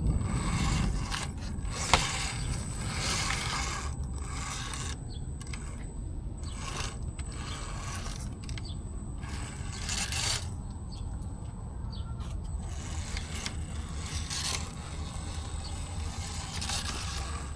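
Axial Capra RC crawler's electric drivetrain whirring and its tyres scraping over the trail in repeated bursts, with a sharp knock about two seconds in. A thin steady high whine and a low rumble run underneath.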